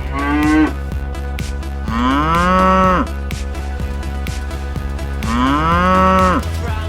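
Cow mooing three times: a short moo at the start, then two longer moos of about a second each that rise and then fall in pitch. A steady low hum and faint regular ticks run underneath.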